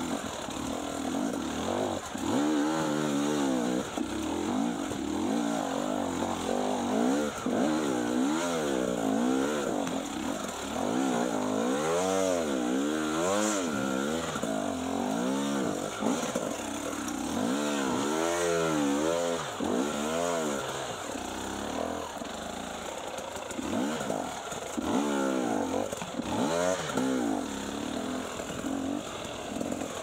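Enduro dirt bike engine revved in repeated short bursts, its pitch rising and falling again and again, as the rider throttles through a rocky, technical trail.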